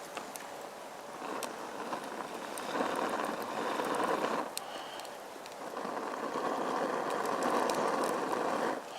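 Two long breaths blown into the bottom vent of a wood-burning Swiss army volcano stove to fan the fire. The second breath is longer, about three seconds. Small crackles from the burning twigs come through throughout.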